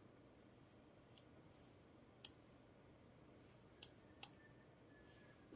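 A computer mouse clicked a few times, with single sharp clicks at uneven intervals and two of them close together, against a quiet room.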